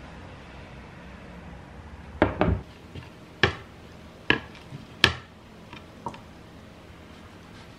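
Dishes and utensils clinking and knocking on a table or counter: a run of about eight sharp knocks between two and six seconds in, the loudest around five seconds in, over a faint steady room hum.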